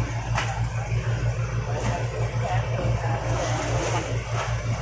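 A fishing boat's diesel engine running steadily, with an even low pulse several times a second.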